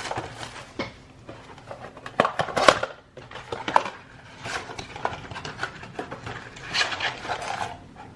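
Hands opening a cardboard trading-card blaster box and handling the packs inside: irregular taps, scrapes and rustles of cardboard and foil.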